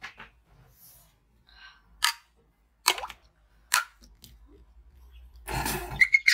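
A large metal spoon tapping a glass mug of cola three times, sharp separate clicks, an attempt to set off the instant freezing of supercooled cola. A short rush of noise follows near the end.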